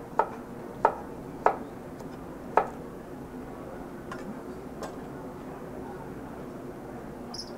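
Kitchen knife slicing a cucumber on a cutting board: four sharp knocks of the blade on the board in the first three seconds, then two fainter ones, over a steady room hum.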